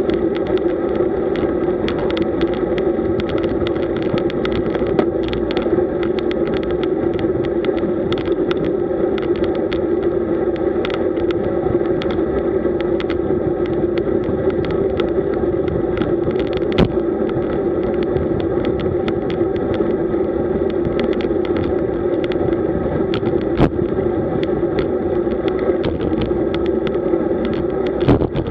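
Road bicycle riding at speed, heard from a bike-mounted camera: a steady rushing hum of wind and tyres on rough road, with frequent small clicks and knocks.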